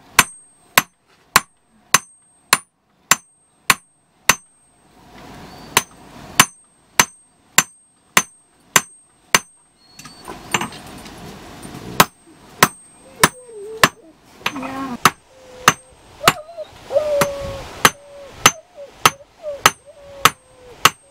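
Hand hammer striking a red-hot steel bit on an anvil in a steady rhythm of about three blows every two seconds, each blow with a bright metallic ring.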